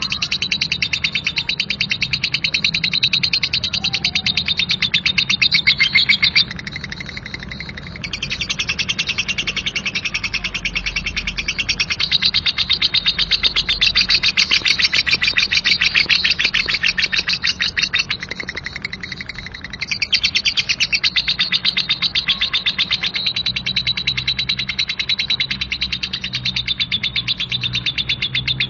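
Young lovebird giving a long, rough 'ngekek' chatter: a fast rapid-fire rattle of harsh high notes. It breaks off briefly twice, about six seconds in and again about eighteen seconds in.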